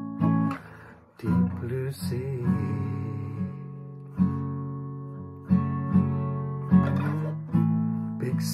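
Acoustic guitar playing slow chords, each struck and left to ring and fade, a new one roughly every second.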